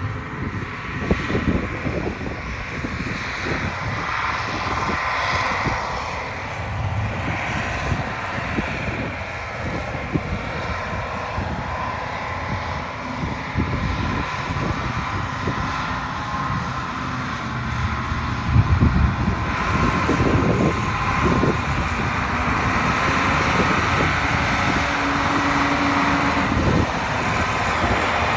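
Tractor engine running steadily as it drives, with a cluster of loud knocks and jolts about two-thirds of the way through.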